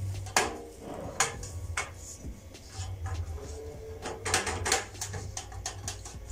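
Thin metal baking pans being handled and turned over, giving scattered clicks and light clanks of metal, with a quick run of them about four seconds in.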